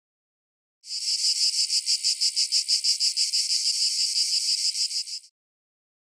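Cicadas buzzing in a high, fast-pulsing drone. It comes back about a second in and cuts off abruptly about a second before the end.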